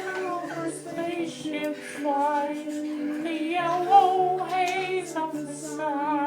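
A voice singing a slow melody in long, wavering held notes, over steady sustained tones lower down.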